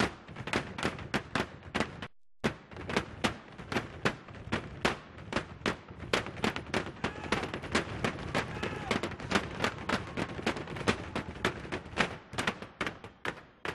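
Long wooden-looking percussion poles struck on the stage floor in a rhythmic stick routine: a fast, steady run of sharp cracks, about four a second at first and growing denser midway. The sound cuts out briefly about two seconds in.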